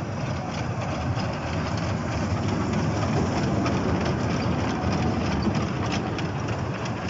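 Small kiddie ride train rolling round its circular steel rail track: a steady rumble of wheels on rail with scattered clicks, a little louder in the middle as the cars pass close.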